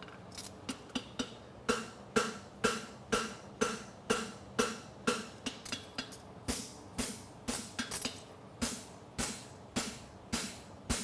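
Farrier's hammer striking a hot steel horseshoe on an anvil while forging the shoe: a steady run of blows, about two to three a second, each with a short ringing note from the anvil.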